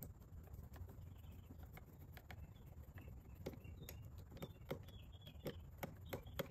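Faint, irregular small clicks and ticks of a hand screwdriver turning out a screw in the front panel of a portable inverter generator, over a low steady hum.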